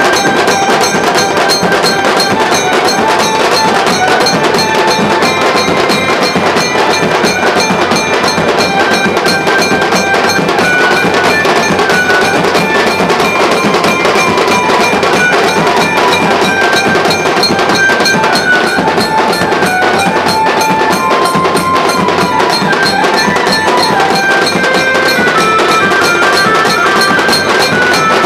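Nashik dhol band playing a fast, loud, driving rhythm on big barrel dhols, drums and cymbals, with a stepping melody line carried over the beat.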